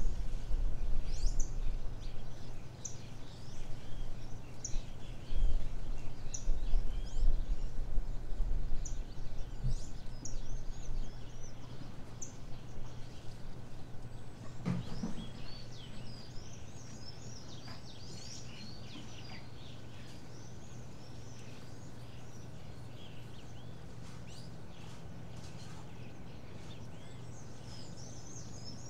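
Small birds chirping and singing in many short, overlapping calls. Under them a low rumble is loud for the first half and fades away, with a single knock about halfway through.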